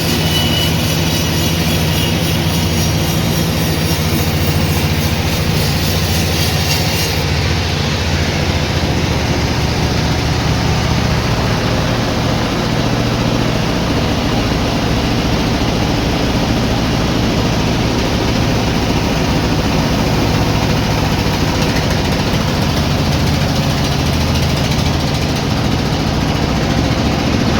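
Sawmill machinery running steadily with a low, even hum under a rush of noise; the highest hiss drops away suddenly about seven seconds in.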